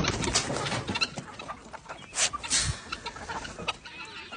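Chickens clucking in short, irregular calls, with two louder noisy sounds a little past the middle.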